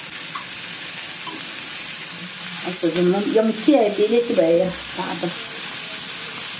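Sliced onions and other food sizzling in oil in a frying pan, stirred with a fork. A woman's voice comes in for about two seconds midway.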